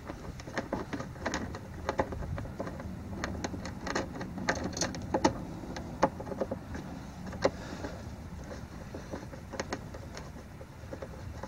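Light, irregular metal clicks and ticks of a socket on a short extension as a cover bolt is threaded in by hand.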